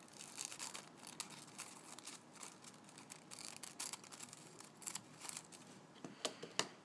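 Scissors snipping through a sheet of thin Zig-Zag rolling paper in a run of short, crisp cuts, followed by a few sharp clicks near the end.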